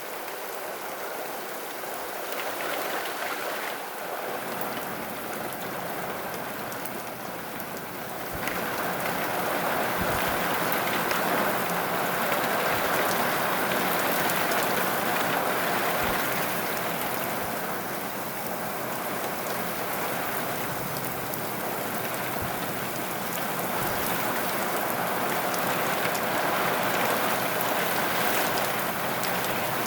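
Heavy rain from a thunderstorm pouring down in a steady hiss, growing louder about eight seconds in as the downpour picks up.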